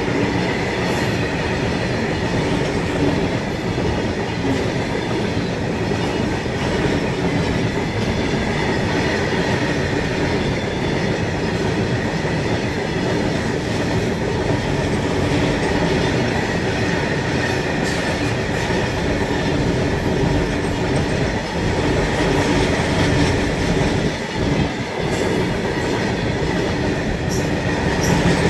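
LHB passenger coaches running past at speed close by: a steady rumble and rattle of wheels on the rails, with scattered clicks and a faint, steady high tone.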